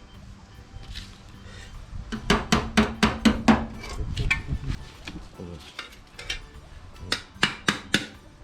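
Hammer blows on a small piece of sheet steel being shaped into a rust-repair patch, each a sharp metallic clink. A quick run of about six strikes comes a couple of seconds in, and a second run of several more near the end.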